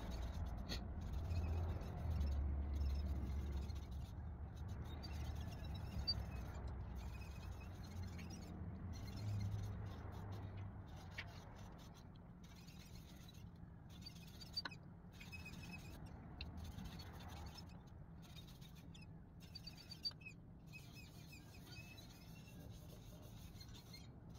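Faint rubbing of a cloth pad wiping shellac onto a walnut bowl, with a low rumble from handling the bowl and a few light clicks.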